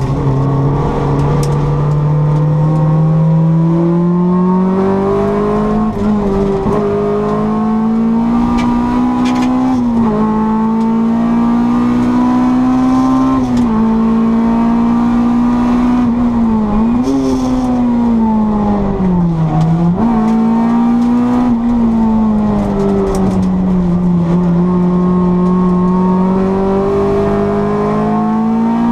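Four-cylinder engine of a 1600 Honda Civic racing on track under continuous load. Its pitch climbs steadily and then drops sharply several times a few seconds apart, with the deepest dip about two-thirds of the way through before the revs build again.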